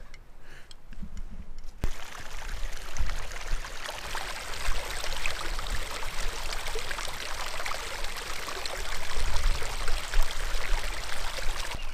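A small stream of running water trickling and splashing over stones as it flows into a reservoir. It starts suddenly about two seconds in and then runs on steadily.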